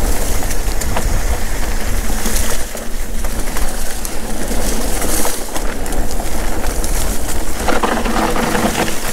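Mountain bike ridden fast down a rough dirt forest trail, heard close up from the rider's action camera: tyres running over dirt and dry leaves, the bike rattling and clicking over bumps, and wind buffeting the microphone. A brief low hum joins in near the end.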